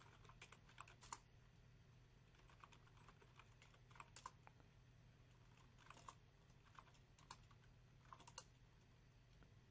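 Faint computer keyboard typing: short runs of keystroke clicks with pauses between them, over a low steady hum.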